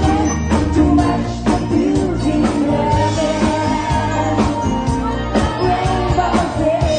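Live rock band playing with a woman singing the lead vocal in long held, wavering notes over steady drums.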